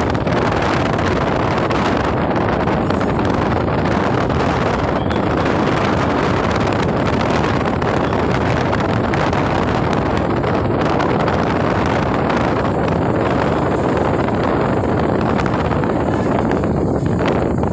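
Wind rushing past the open side window of a moving vehicle, mixed with road and engine noise, as one steady, loud, even noise.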